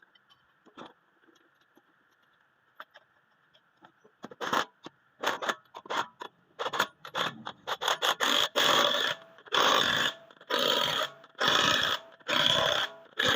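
Repeated hand scraping strokes, faint light ticks at first, then from about four seconds in a run of rasping strokes that grows louder and settles to about one stroke a second, as of a part being filed or scraped by hand.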